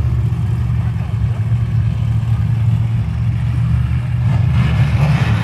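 A pack of dirt-track Sportsman race car engines running together around the oval, a steady low drone. A hissing rush grows in over the last second.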